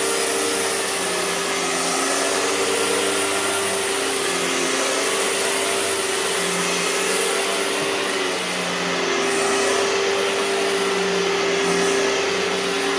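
Hoover TurboPower 5000 canister vacuum running loud and steady while vacuuming: rushing air with a steady hum, and lower tones that waver.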